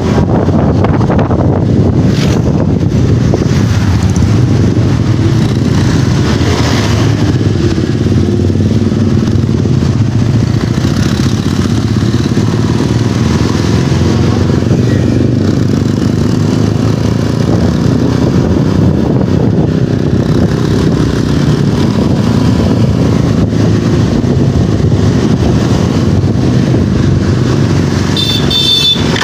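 Motorcycle running at road speed, heard from on the moving bike: a loud, steady rumble.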